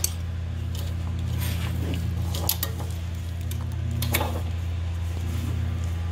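A few light metallic clinks and knocks as a braided oil drain hose and its fittings are worked down into a car's engine bay, over a steady low hum.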